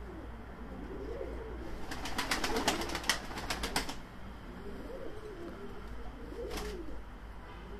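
Miro tumbler pigeons cooing in the loft, several low rising-and-falling coos in a row. About two seconds in, a fast run of sharp clicks lasts about two seconds and is the loudest sound, with one more click near the end.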